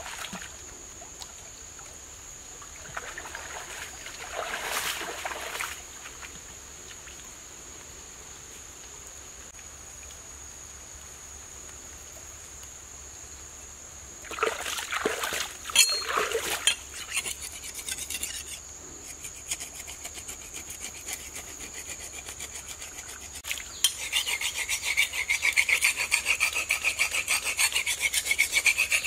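Water sloshing as a man wades in a shallow stream, with a louder burst of splashes and knocks about halfway through. In the last five seconds, rapid, steady scraping strokes as he digs into the muddy bank by the water. A thin steady high tone runs underneath.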